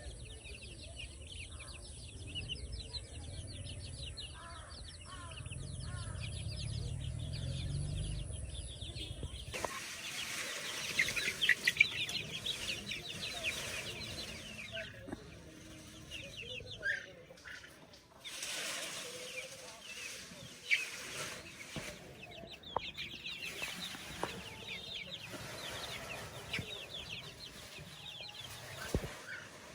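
Chickens clucking and chirping, many calls overlapping. A low rumble underlies the first ten seconds, then the sound changes abruptly and the chirping grows louder and brighter.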